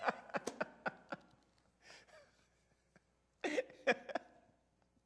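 A man laughing softly in short chuckles, a quick string of them in the first second and another brief burst about three and a half seconds in.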